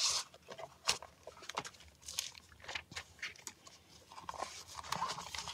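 Irregular rustling, crinkling and light clicks of a clear plastic planner cover and a fabric planner cover being handled as a planner is slipped inside.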